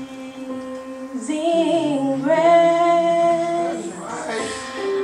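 A young woman singing solo into a handheld microphone, holding long notes that step to a new pitch every second or so.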